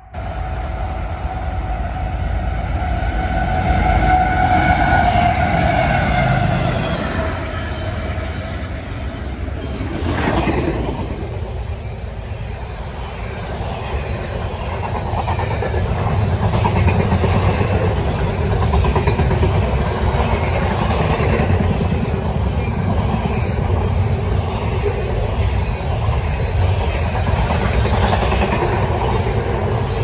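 Freight train led by Canadian Pacific diesel locomotives: a multi-tone horn sounds for several seconds as the train approaches, and the locomotives go by about ten seconds in. Then comes a steady rumble and clatter of intermodal cars loaded with trash containers rolling past.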